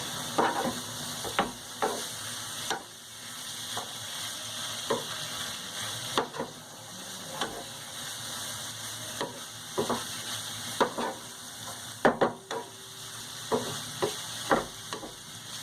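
Shrimp sizzling as they sauté in hot oil with garlic and herbs in a frying pan, stirred with a utensil that knocks and scrapes against the pan now and then.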